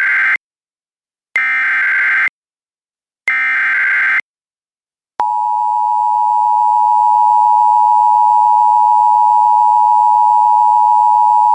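Emergency Alert System SAME header: three data bursts of about a second each, with short gaps between them and the first already under way. About five seconds in, the steady EAS two-tone attention signal starts and holds; it marks the start of an emergency alert, ahead of the spoken message.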